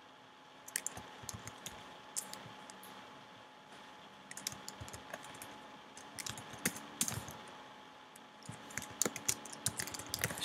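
Typing on a computer keyboard: irregular key clicks in short uneven bursts, with pauses between, over a faint steady hum.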